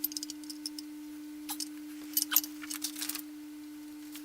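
Light metallic clicks and taps of screws and lock washers being handled and fitted during exercise-bike assembly, the loudest cluster a little past halfway, over a steady low hum.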